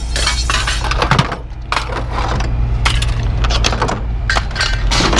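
Pieces of light-iron scrap clanking and clattering as they are pulled from a pickup bed and dropped onto the ground: a dozen or so irregular sharp knocks, over a steady low hum.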